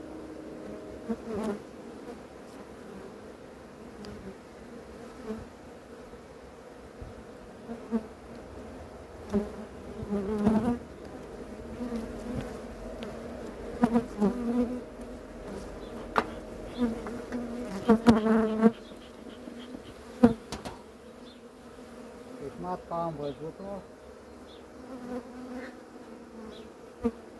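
Honeybees buzzing around an open hive: a steady hum, with louder buzzes rising and fading every second or two. A couple of sharp clicks come through about two thirds of the way in.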